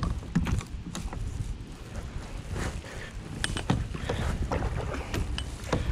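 Kayak paddle strokes: water splashing and dripping off the blades, with a few sharp clicks and knocks from the paddle, over a low rumble of wind on the microphone.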